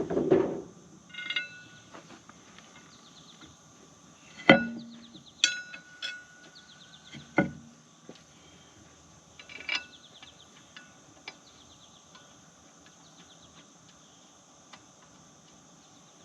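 Scattered metal clanks and knocks of tools and parts being handled while working on a skid steer's track undercarriage, several leaving a brief metallic ring, with insects chirping steadily in the background.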